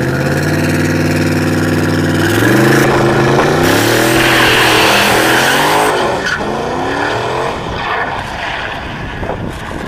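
Drag-racing ute's engine held at steady high revs on the start line, then launching: the revs climb, fall back and climb again through the gear changes as it accelerates away down the strip, fading with distance near the end.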